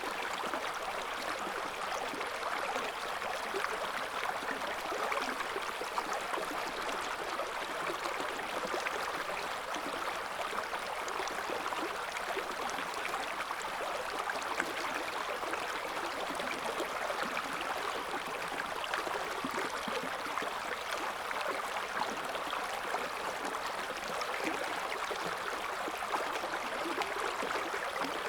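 River water flowing over stones: a steady babbling rush with small splashes and gurgles, even throughout.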